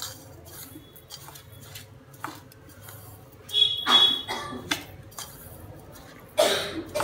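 Steel spoon stirring wet flaxseed in a steel bowl, with small scrapes and clinks. Two louder short animal calls break in, about four seconds in and again near the end.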